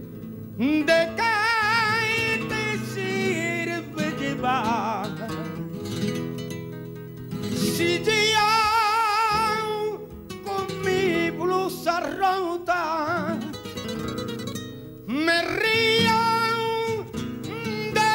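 A male singer sings a flamenco-style song live with Spanish guitar accompaniment, drawing out long wailing notes with heavy vibrato.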